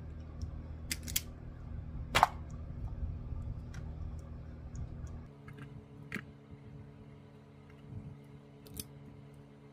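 Vise-Grip self-adjusting wire stripper snapping as it strips insulation off car-radio harness wires: scattered sharp clicks, the loudest about two seconds in, over a steady low hum.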